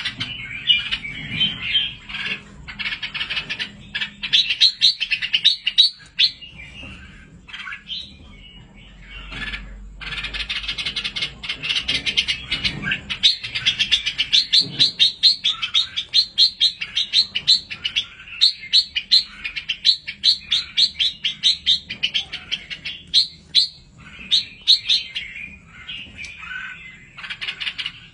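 Red-whiskered bulbul chicks calling in rapid runs of high, short chirps, several a second, with a lull of a few seconds about a third of the way in.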